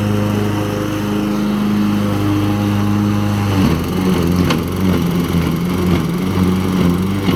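Lawn mower engine running steadily and close by; about halfway through its note drops slightly and turns uneven and pulsing.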